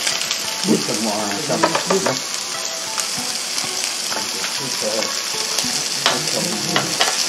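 Beef rib steak and sliced zucchini, eggplant and mushrooms sizzling steadily on the hot plates of an electric contact grill, with a few sharp clicks of metal tongs against the grill.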